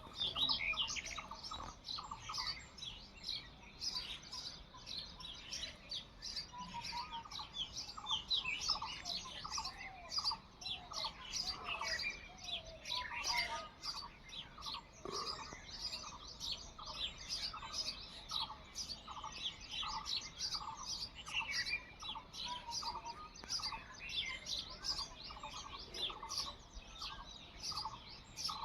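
Several small birds chirping and calling together, a dense mix of short high chirps with one bird repeating a lower note at a steady pace, about two a second.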